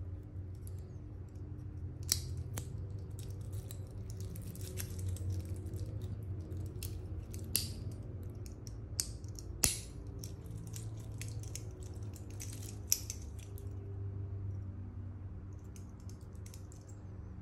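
Metal clicks and light rattling of a Seiko 5 Sports SRPD65K1's stainless steel bracelet and triple-fold clasp being handled, with several sharp clicks as the clasp is worked open and shut. A low steady hum runs underneath.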